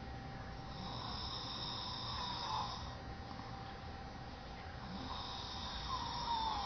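A person snoring: two long snores about four seconds apart, each lasting about two seconds and falling in pitch at its end.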